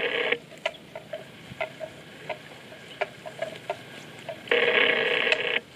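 Hollow clonks of a wooden bell hung on a grazing water buffalo's neck, short and irregular, about one or two a second. A louder steady sound about a second long stops abruptly just after the start and comes again about four and a half seconds in.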